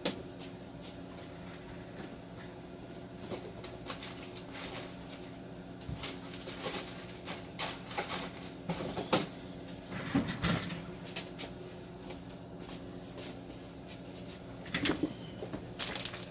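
Handling and rummaging for small zip ties: scattered rustles and short clicks, busiest around the middle and again near the end, over a steady low hum.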